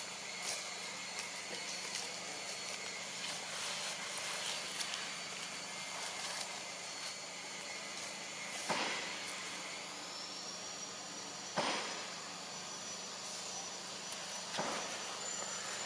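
Steady forest ambience: a continuous hiss with thin, steady high tones, broken by three short, sharp noises, about nine, eleven and a half and fourteen and a half seconds in.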